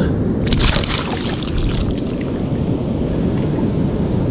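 Steady wash of surf, with wind buffeting the microphone. About half a second in there is a short crackling, splashy burst lasting around a second.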